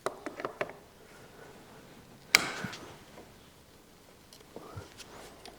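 Hand tools and metal parts handled on a workbench: a few light clicks, one sharp knock with a brief ring about two and a half seconds in, then a few faint clicks near the end.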